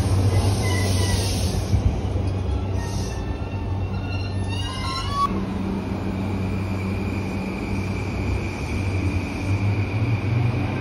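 JR East E235 series Yamanote Line electric train running by, with a steady rumble of wheels and motors. About four seconds in a rising whine builds; after a sudden change, a steady high whine carries on as the train rolls slowly along the platform.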